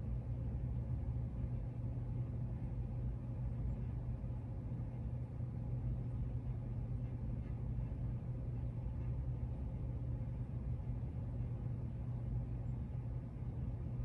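1999 Hampton Bay Tiffany Sonoma ceiling fan running on its low speed: a steady low hum with even air noise.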